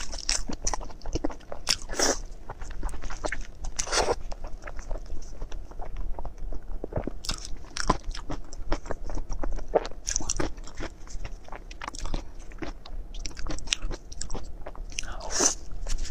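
A person biting into and chewing glazed, chili-seasoned food close to a clip-on microphone: a dense run of mouth clicks and smacks, with a few louder bites spread through.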